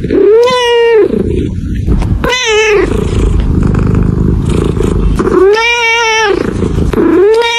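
Grey-and-white cat meowing: three long drawn-out meows that rise and fall in pitch, a fourth starting near the end, with a low purring rumble between them.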